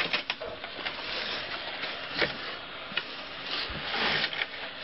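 A heavy, muddy sack of dug spoil, just hoisted up a shaft on a rope and pulley, being handled and dragged across a wooden platform: rustling and scraping, with a few knocks.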